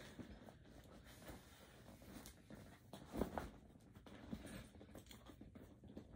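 Rustling and soft knocks of items being pushed and arranged inside a vegan leather tote bag by hand, with a louder bump about three seconds in.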